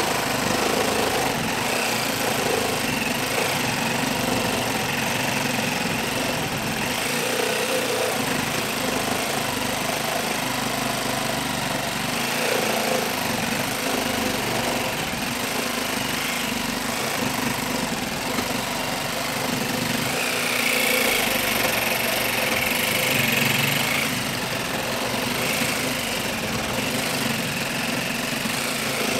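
TackLife 12-volt cordless mini reciprocating saw running continuously, its blade sawing through a clamped 4x4 wooden post. The sound is steady, a little louder for a few seconds about two-thirds of the way through.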